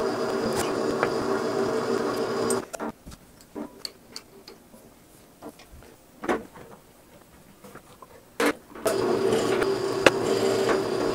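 Drill press motor running with a steady hum while drilling into an aluminum bracket. It goes quiet about three seconds in, leaving a few light clicks and taps, and starts running again at about nine seconds.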